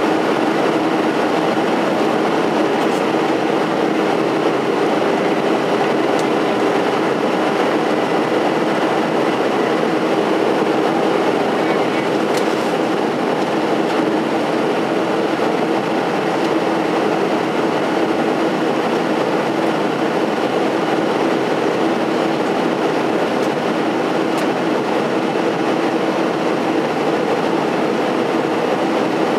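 Steady cabin noise inside a Boeing 737-700 in flight: its CFM56-7B jet engines and the airflow over the fuselage make an even rushing noise with a low steady hum under it.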